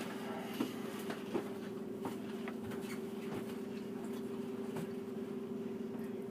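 A steady, low hum from a running kitchen appliance, with a few light clicks and taps of utensils or dishes.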